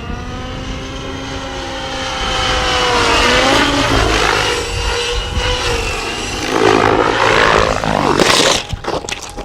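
Radio-controlled model helicopter's rotor and motor whining steadily, the pitch sagging and recovering about three seconds in. A loud burst of noise comes about eight seconds in.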